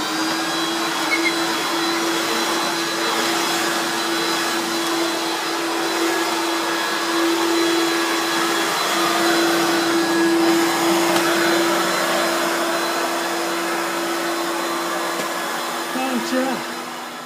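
Vacuum cleaner motor running steadily, a constant hum and high whine over a rush of air, left standing still and idling without cutting out. The level dips near the end.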